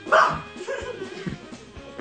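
A sudden loud bark-like cry just after the start, followed by a few quieter calls, over background music.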